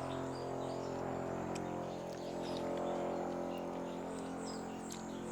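Faint, scattered bird chirps over a steady mechanical hum.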